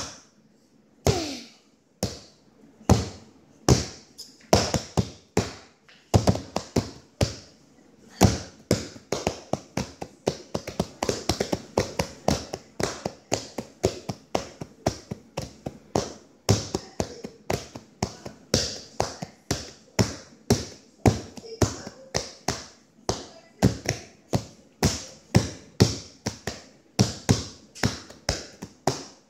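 A child's fingers tapping repeatedly and irregularly on a hard surface close to the microphone, a few sharp taps a second.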